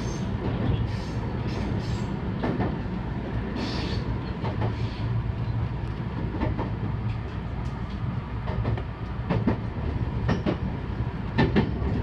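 Commuter electric train running, heard inside the front cab: a steady low rumble of wheels on track with scattered clacks over rail joints, coming thicker near the end as the train rolls onto points.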